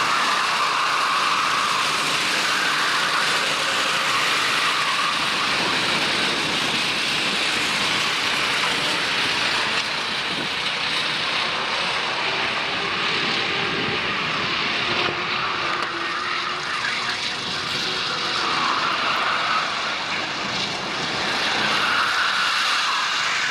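Racing go-kart engines running hard and continuously, their pitch bands rising and falling.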